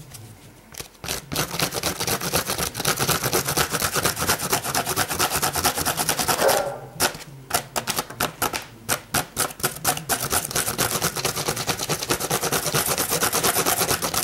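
A keyhole (drywall) saw blade scraped rapidly back and forth along the edge of a cork board tile, rasping the cork into a soft, crumbly edge. The strokes are fast and loud, with a short break about halfway through.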